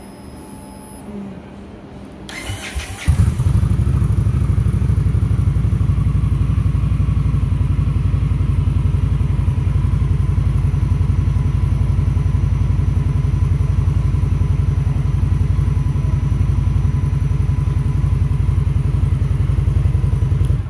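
2020 Indian Scout Sixty's V-twin engine cranked by the electric starter, catching after about a second with a brief blip. It then idles steadily in neutral with an even, pulsing beat until it is switched off abruptly near the end.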